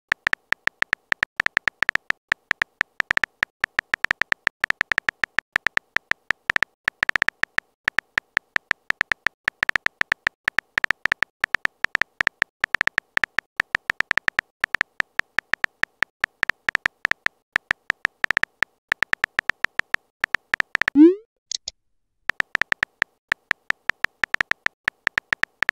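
Rapid, irregular keyboard tap clicks from a texting app as a message is typed letter by letter. About 21 seconds in, the typing stops for a short upward-sweeping send sound, then the clicks start again.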